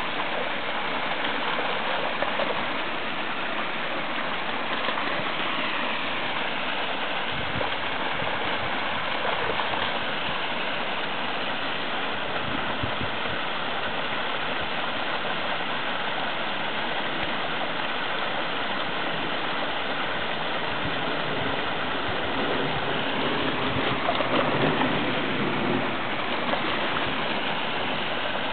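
Stream water pouring over a small rocky cascade, a steady rushing and gurgling.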